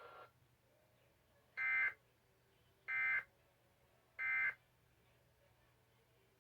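Emergency Alert System end-of-message (EOM) signal: three short, identical bursts of digital data tones about 1.3 seconds apart, marking the end of the alert broadcast.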